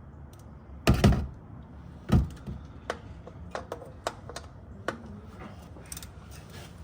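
Oil filter being screwed back on by hand, with knocks and clicks from the filter and the metal around it: two heavy knocks about one and two seconds in, then a run of lighter, irregular ticks.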